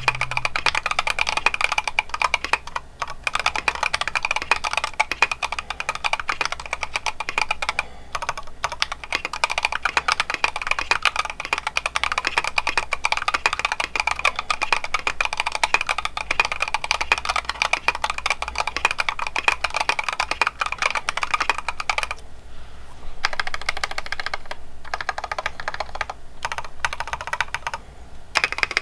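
Fast continuous typing on a 60% mechanical keyboard with Gateron CJ linear switches, a copper plate and KAT-profile keycaps in a stacked acrylic case. Dense keystroke clacks, broken by brief pauses, the longest about 22 seconds in.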